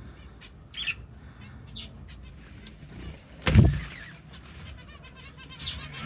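Small cage birds chirping in an aviary: a few scattered high chirps, then near the end a quick run of falling chirps, about five a second. About halfway through there is one louder, lower sound.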